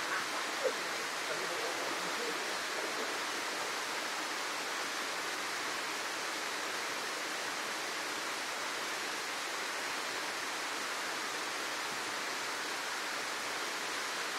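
Steady rush of a small waterfall pouring into a rocky pool: an even wash of falling water with little low rumble.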